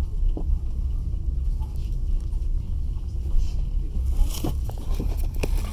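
Passenger train carriage running along the track: a steady low rumble of wheels on rails, with a few short light knocks in the second half.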